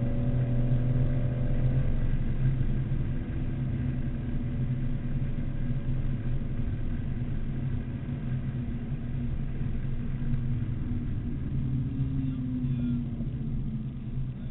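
BMW Z4 M Coupe's straight-six engine pulling at a steady pitch, heard from inside the cabin with road noise. A higher part of the engine note fades out about two seconds in.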